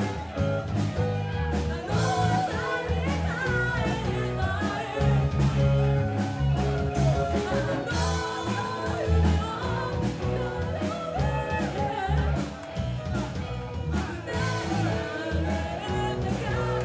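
Live rock band: a woman singing lead over electric bass guitar and drum kit, played through the club's PA.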